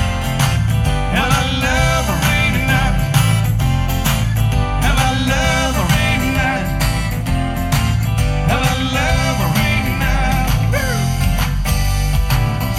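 Live country-rock band music: acoustic guitar, electric bass and a backing beat, with a gliding lead melody line on top, in phrases.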